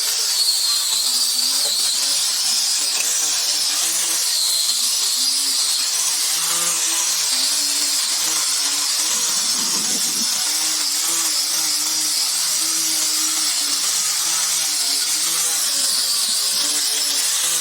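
A power tool runs continuously, with a high whine that wavers up and down in pitch as the load on it changes.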